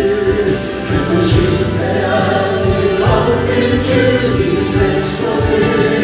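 Background music: a choir singing a gospel hymn in long, sustained notes.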